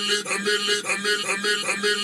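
Hip hop music playing over a car stereo, with a steady repeating beat and almost no deep bass.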